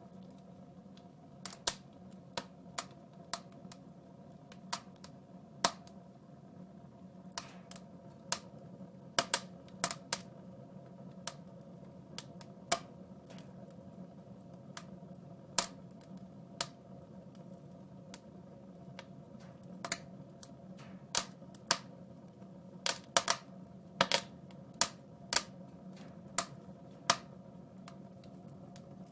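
Wood fire crackling in a fireplace: sharp, irregular pops about once a second, sometimes in quick clusters, over a steady low hum.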